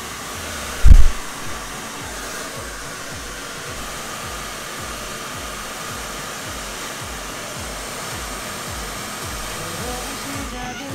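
Handheld hair dryer blowing steadily while drying short hair, with one loud low thump about a second in.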